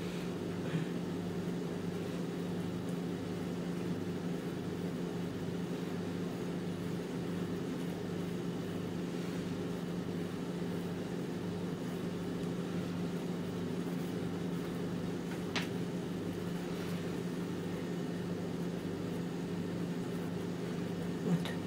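Steady mechanical hum of a running appliance motor or fan, with a faint slow pulsing beneath it. One short click about fifteen seconds in.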